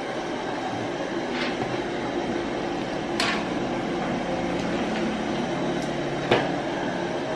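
Metal slotted ladle stirring a big aluminium pot of soup, clinking against the pot three times, the last clink the loudest, over a steady rushing noise.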